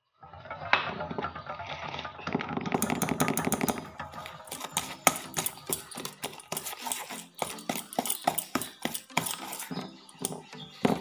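Wire whisk beating chocolate cake batter in a stainless steel pot: a soft stirring sound at first, then from about three seconds in quick, repeated clinks as the whisk strikes the metal pot.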